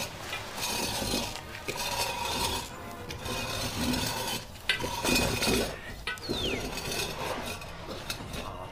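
Rustling and scraping of small objects being handled on a stone pedestal, in repeated short bouts. There is a sharp click about halfway through and a short falling whistle a little after it.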